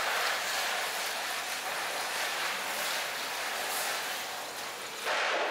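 A steady rushing hiss with no pitch. It swells briefly near the end, then cuts off suddenly.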